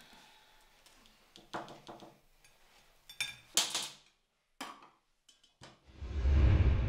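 Light clinks and knocks of mugs and small objects handled on a table, with a brief louder clatter a little past halfway. Near the end a deep rumble swells up and then fades.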